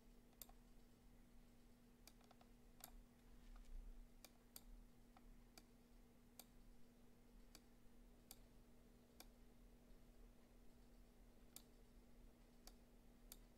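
Faint computer mouse clicks, about fifteen sharp, irregularly spaced clicks while an image is being dragged and positioned on screen, over a low steady electrical hum.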